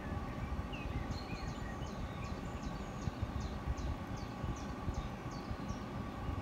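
A small bird singing a run of short, high notes, about two or three a second, over a steady low outdoor background, coming from a nature video playing on a tablet's speaker.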